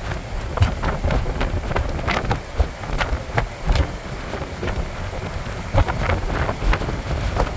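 Strong wind gusting on the phone's microphone in uneven rumbling buffets, over the rushing noise of rough surf breaking along the shore.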